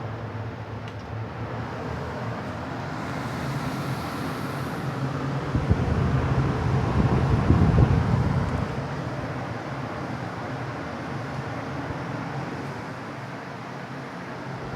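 Britânia Turbo pedestal fan running: a steady rush of air over a low motor hum, swelling louder for a couple of seconds about halfway through and then easing back.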